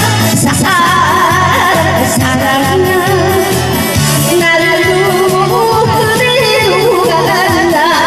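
A woman singing a Korean song with vibrato into a handheld microphone over a recorded backing track, both amplified through a PA speaker.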